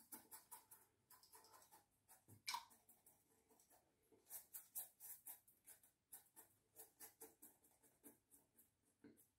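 Faint, quick scratchy strokes, a few a second, of a Gillette Sensor 3 three-blade cartridge razor cutting stubble under the nose, with a short pause in the middle. A brief louder noise comes about two and a half seconds in.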